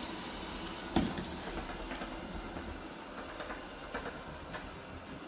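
Eufy RoboVac 30C robot vacuum running as it rolls across the floor and mats: a steady whir of its suction motor and brushes, with one sharp knock about a second in and a few faint ticks after.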